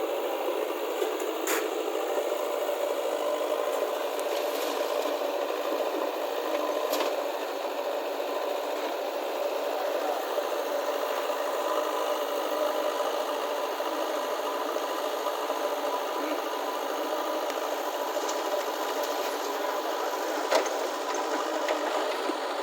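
JCB 3DX backhoe loader's diesel engine running, a steady mechanical drone, with a few sharp knocks along the way.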